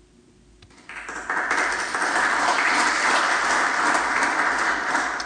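Applause from the audience, building about a second in, holding steady, then tailing off near the end.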